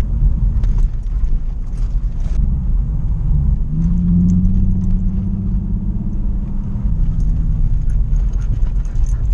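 Nissan 350Z's V6 engine running at low speed, with road rumble heard inside the cabin, its engine note stronger for a couple of seconds in the middle. Scattered light clicks sit over the rumble.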